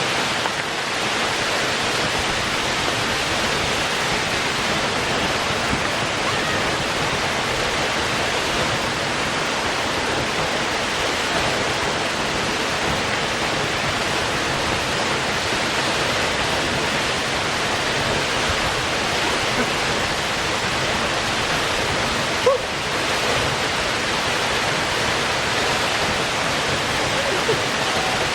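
San Antonio Falls waterfall: a steady, even rush of falling water that does not change. There is one brief click about 22 seconds in.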